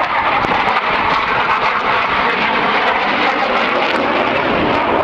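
Military fighter jet flying past overhead: loud, steady jet engine noise.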